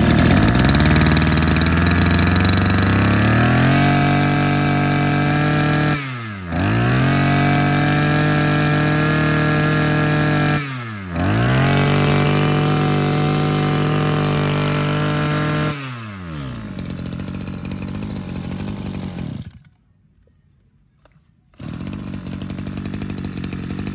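Maruyama 23cc two-stroke brush cutter engine running after a start, revved up in three long bursts with sharp throttle drops and pickups about 6 and 11 seconds in. It falls back to idle about 16 seconds in and cuts off about 20 seconds in. A steady pitchless noise comes back near the end.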